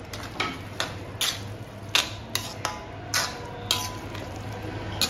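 Slotted metal spatula scraping and knocking against a metal kadhai as thick pumpkin sabzi is stirred, in irregular strokes about two a second.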